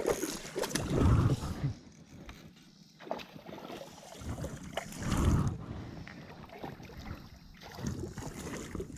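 Water sloshing and splashing around a kayak, with wind buffeting the microphone, in two louder swells about a second in and about five seconds in.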